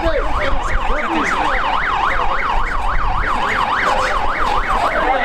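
Electronic siren in a fast yelp, its pitch sweeping up and down about four to five times a second, with crowd voices underneath.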